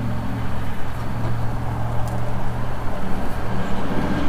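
A steady low mechanical hum, with a faint click about two seconds in.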